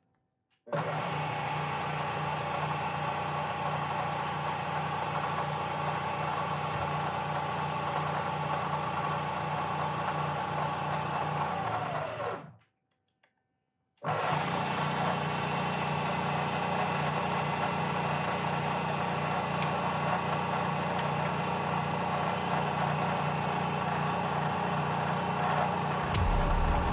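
Milling machine spindle running steadily at its low speed, turning a coaxial centering indicator, a steady mechanical hum. The sound cuts out suddenly about twelve and a half seconds in and comes back about a second and a half later; a deeper rumble joins near the end.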